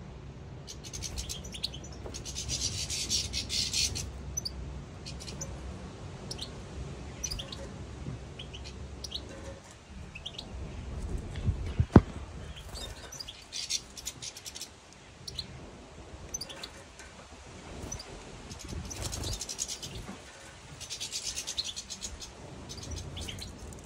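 European goldfinches twittering in short bursts of high chirps. There is one sharp click about halfway through.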